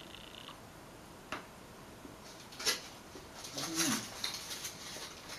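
A person eating chocolate close to the microphone: a few sharp mouth clicks, then crackly chewing noises, with a short falling hummed "mm" a little past the middle.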